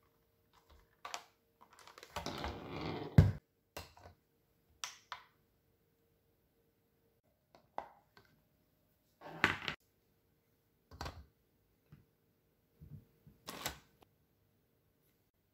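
Scattered clicks and knocks from a glass food-storage container with a plastic lid being opened and cubes of butter being put into a glass bowl on a kitchen scale. About two seconds in there is a short rustle that ends in a louder knock.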